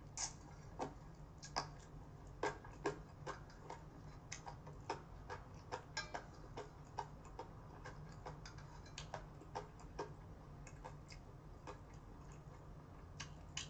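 Faint eating sounds: irregular sharp clicks of chopsticks stirring and tapping in a stainless-steel bowl of cold noodles, mixed with mouth sounds, a few clicks a second over a low steady hum.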